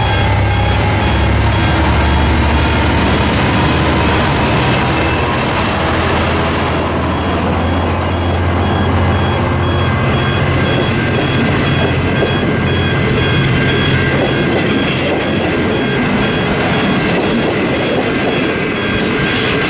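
V/Line N-class diesel-electric locomotive passing close by with its passenger train: a deep engine rumble with a slowly rising whine, fading after about six seconds as the locomotive moves on. Then the passenger carriages roll past with steady wheel and rail noise.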